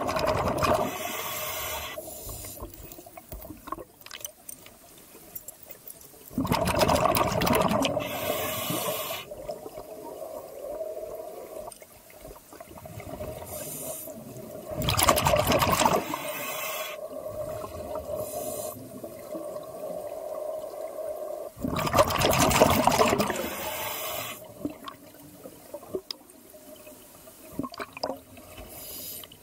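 Scuba diver breathing underwater through a regulator: a loud rush of exhaled bubbles about every seven seconds, four times, with quieter breathing hiss and a steady hum between exhalations.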